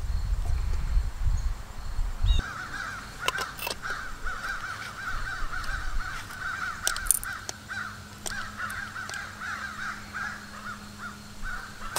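A crow calling in a fast run of short, rising-and-falling notes, about four or five a second, starting a couple of seconds in and going on steadily. The calls sound like a monkey.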